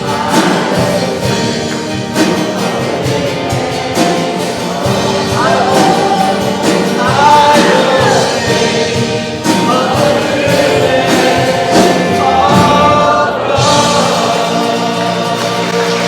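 Congregational hymn singing with instrumental accompaniment: many voices sing a gospel hymn over a steady beat.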